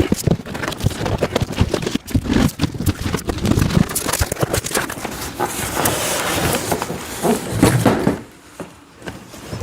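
Large cardboard shipping box being worked open by hand: repeated knocks and scraping and rustling of cardboard, dropping away briefly near the end.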